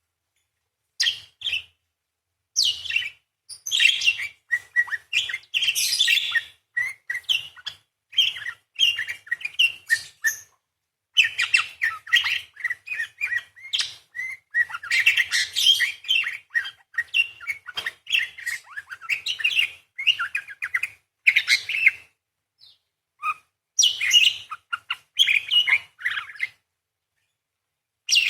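Parakeet chattering in long, rapid runs of high chirps and scratchy trills, broken by a few short pauses.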